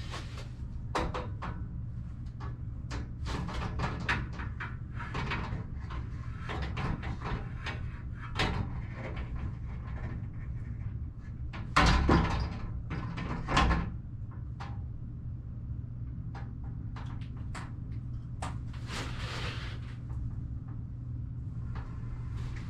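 Glass sliding shower door panel being hung on its top rail: scattered clicks and knocks of its rollers and metal hardware against the track, with a louder clatter of knocks about halfway through.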